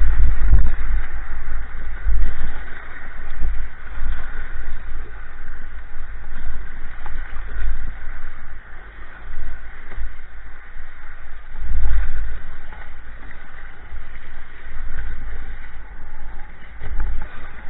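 Fast river water rushing and splashing around a kayak running a riffle, with a heavy low rumble that surges and fades unevenly.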